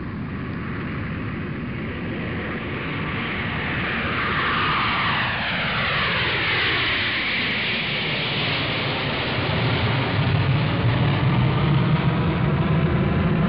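An aircraft passing overhead: its noise grows louder, with a whine that sweeps down in pitch as it goes by, and a deep rumble swells near the end.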